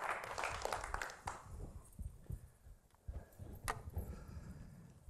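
Crackling audience noise, most likely the end of applause, fading out over the first second or so. Then footsteps thud on the stage floor, with a single sharp click about two-thirds of the way through.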